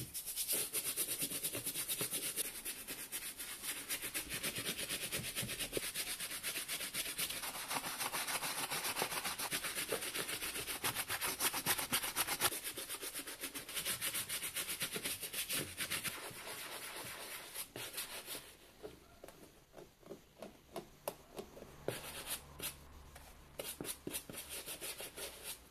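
Wooden-handled shoe brush scrubbing wet, lathered suede on a work boot in quick back-and-forth strokes. About eighteen seconds in, the scrubbing drops in level and breaks up into separate scratchy strokes and light taps.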